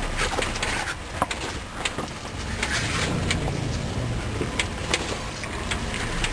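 Jeep Wrangler crawling slowly over a rocky creek bed: a low engine rumble, with the tyres crunching and knocking on stones in scattered sharp cracks.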